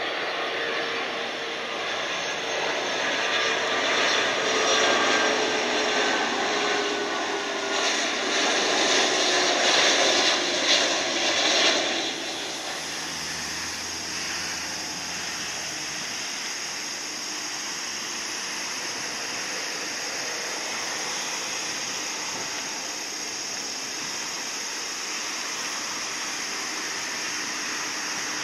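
Jet noise from an Airbus A330 airliner on final approach passing overhead, growing louder with whining engine tones that fall in pitch as it goes by, cut off abruptly about twelve seconds in. Then a steadier, quieter jet hiss with a faint high whine from a Boeing 737 taxiing on its engines.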